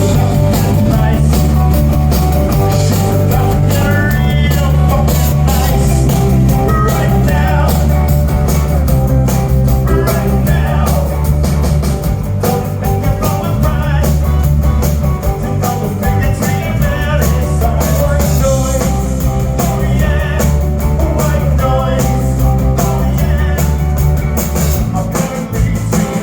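Live rock band playing a song loudly, with a heavy, steady bass and drum groove under guitar and a singing voice.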